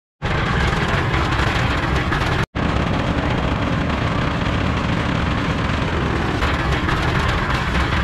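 Portable drum concrete mixer running steadily, its engine and turning drum giving a continuous rumbling clatter that drops out for an instant about two and a half seconds in.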